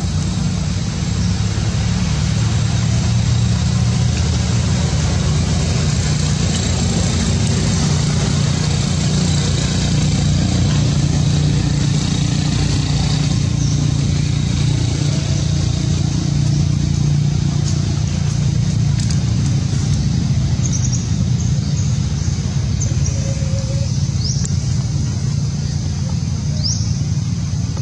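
Steady low rumble of motor traffic, with a steady high hiss above it and a few short rising chirps in the last few seconds.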